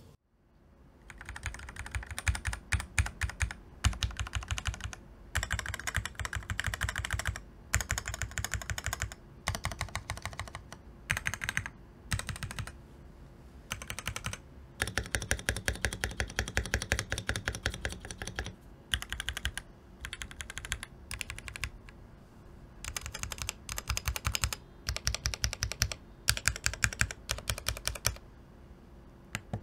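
Typing on a Keychron V1 mechanical keyboard fitted with Keychron K Pro Brown tactile switches: fast runs of keystrokes clacking, broken by short pauses.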